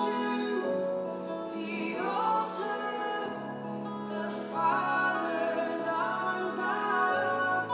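A worship song playing: a singing voice over sustained instrumental accompaniment.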